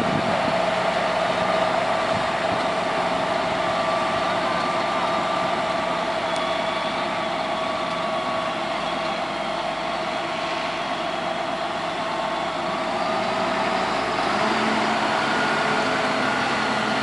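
Large Massey Ferguson tractor's diesel engine running steadily while it pulls a seed drill at low speed; its note changes slightly about fourteen seconds in.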